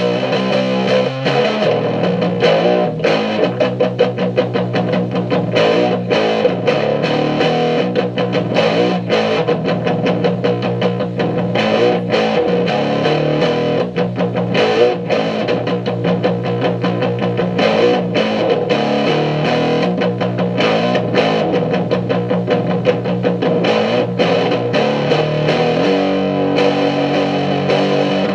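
Guitar music with distorted electric guitar, playing on without a break.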